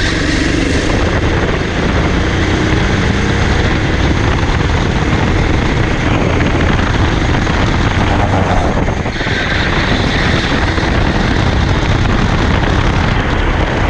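Onboard sound of a racing kart's small two-stroke engine running hard under heavy wind noise on the microphone, easing off briefly about nine seconds in and then pulling again.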